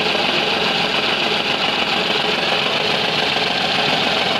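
Renault Kwid three-cylinder petrol engine idling roughly, missing and knocking with heavy vibration: one cylinder, number 3, is misfiring, traced to a fault in its injector control circuit.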